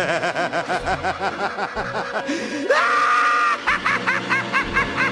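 A cackling villain's laugh, a rapid run of 'ha-ha' pulses, that about three seconds in rises into a high, drawn-out scream and then breaks into shorter high-pitched cries.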